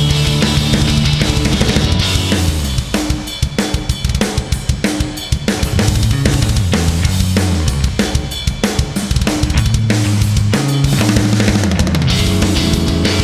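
Backing music, heavy rock with a driving drum beat and bass; the guitars drop back for a few seconds near the middle, leaving mostly drums.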